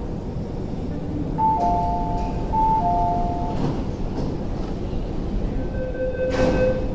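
MTR Tuen Ma Line train standing at an underground platform as its doors and the platform screen doors open, with a two-note electronic door chime sounding twice over a steady train and station hum. A short burst of noise comes near the end.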